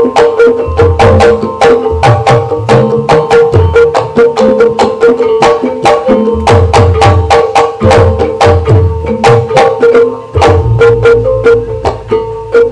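Live ebeg accompaniment music: a Javanese percussion ensemble playing fast, dense struck-key strikes over a steady ringing tone, with groups of low hand-drum (kendang) strokes.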